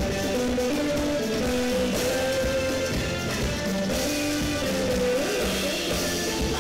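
A live band playing Zimbabwean guitar-band music: interlocking electric guitar and bass lines over a drum kit.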